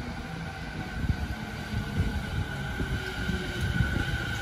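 JR Musashino Line electric commuter train rolling into the station: a steady low rumble of wheels on rail with scattered knocks, and a high whine that grows louder near the end as it slows.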